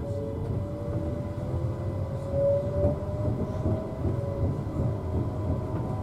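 A train accelerating, heard from inside the carriage by the doors: its traction drive gives a whine in several tones that rise slowly as it picks up speed, over the low rumble of the wheels on the track.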